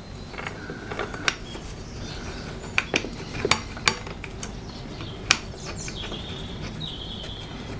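Irregular sharp metallic clicks and clinks, about a dozen in a few seconds. They come as a motorcycle's front brake caliper is slid over the disc and its zinc-plated mounting bolts are fitted by hand.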